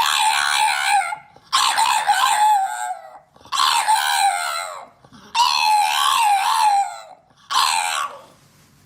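A dog howling in a run of long, wavering, high yowls, about five of them, each one to two seconds long with short breaks between; the last one is short, near the end.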